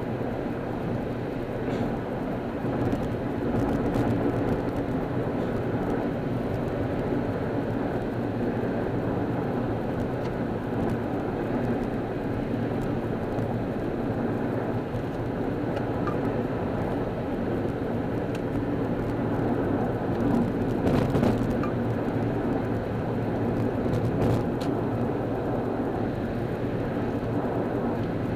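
Steady road and engine noise inside a car's cabin at freeway speed: tyre rumble with a low engine hum, broken by a couple of brief knocks about two-thirds of the way through.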